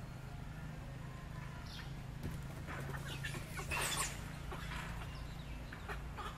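A few short, sharp animal calls, the loudest cluster about four seconds in, over a steady low hum.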